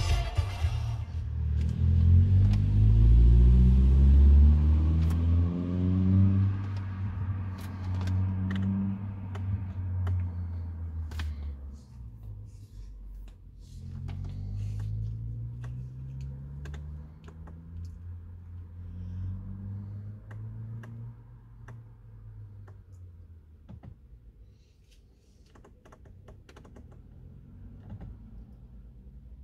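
A car engine runs with its revs rising several times in the first half, while the infotainment controls are clicked and tapped over and over to work through the menus. Short sharp clicks come every second or so from about a quarter of the way in, and the engine sound fades toward the end.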